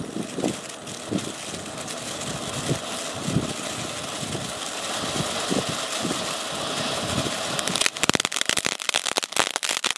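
Damo Fireworks Pappu Shower, a ground fountain firework, spraying sparks with a steady rushing hiss and scattered pops. About eight seconds in, a dense rapid crackling starts.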